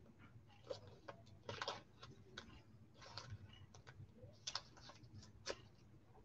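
Faint, irregular clicks and rustles of trading cards being handled, about eight light clicks spread unevenly, the strongest near the start and about four and a half seconds in.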